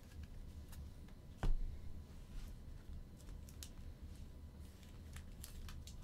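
Small handling sounds at a desk: scattered light ticks and one sharper knock about a second and a half in, over a low hum.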